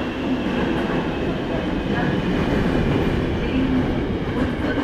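Daegu Metro Line 1 train, a software-updated set, running at speed, heard from inside the passenger car: a steady rumble of wheels on the track with faint high steady tones above it.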